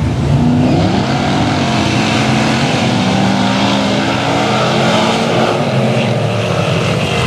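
Engines of several off-road 4x4 trucks and Jeeps revving and running, with one climbing in pitch over the first couple of seconds and then holding steady.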